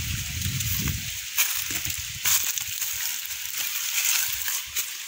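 Dry leaf litter and branches crackling and rustling as someone moves through to the fruit tree, with a few sharper snaps, the clearest about one and a half and two and a quarter seconds in. Under it runs a constant high hiss, and there is a low rumble in the first second.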